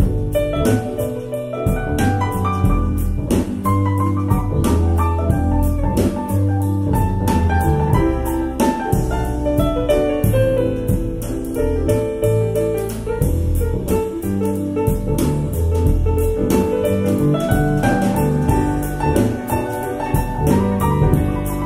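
Instrumental jazz-style music with piano over a deep bass line and a steady drum beat.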